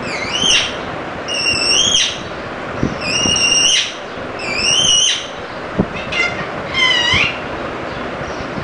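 Parrot giving a series of about six harsh, high-pitched calls, each under a second long and about a second apart.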